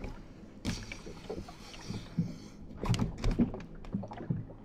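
Water lapping against a motorboat's hull, with a few knocks about three seconds in.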